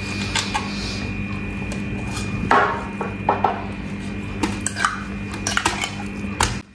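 A spoon scraping and knocking against the inside of an opened tuna tin while scooping the tuna out, in scattered short clicks and scrapes, over a steady low hum.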